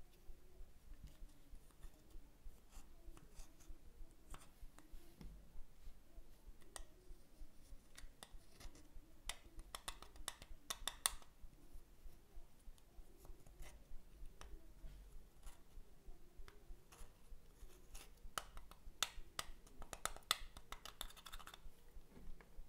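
Metal tool scraping and crushing pressed eyeshadow in a plastic palette: a run of small crisp scratches, crunches and clicks, with denser flurries about ten seconds in and again near the end.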